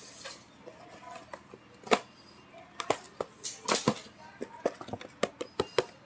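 A package being handled and opened: a single sharp tap about two seconds in, then a quick run of clicks and taps with a brief rustle, thickest near the end.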